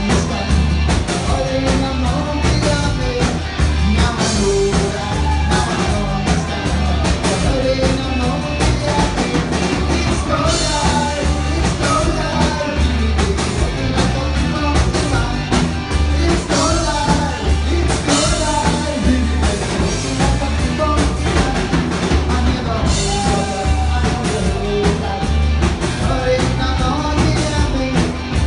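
Rock song with singing over drums and guitar, a steady beat throughout.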